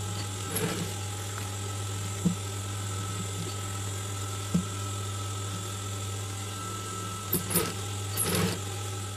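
Industrial sewing machine running with a steady motor hum while a seam is sewn in cap fabric, with a few short knocks, the sharpest about two and four and a half seconds in, and some rustling of fabric near the end.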